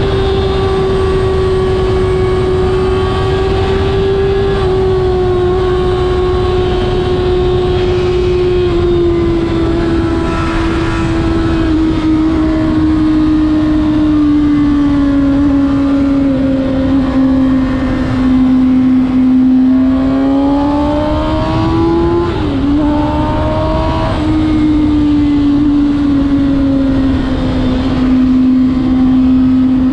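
Kawasaki Ninja ZX-6R's inline-four engine running under way, its note sliding slowly lower as the bike eases off. About two-thirds of the way in, the pitch briefly jumps up and down before settling at a lower, steady note, over a constant rush of wind noise.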